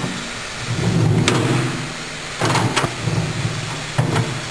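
Clamp assembly of a pneumatic drawer clamp being slid along its frame by hand, a low rumble in several pushes broken by a few sharp metal clunks.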